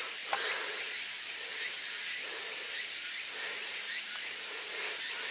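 Steady, high-pitched chorus of insects droning continuously in the trees, with no breaks or changes.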